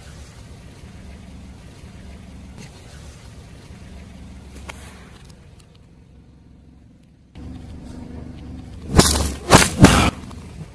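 Car engine running at low idle, then a tyre rolling over and crushing objects: three loud sharp crunches in quick succession about nine to ten seconds in.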